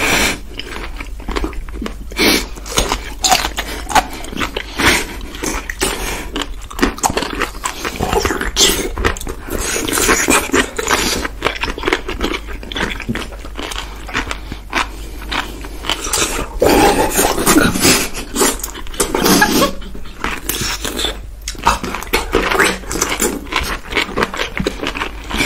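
People chewing crunchy whole pickles close to the microphone: a steady run of crisp crunches and wet chewing.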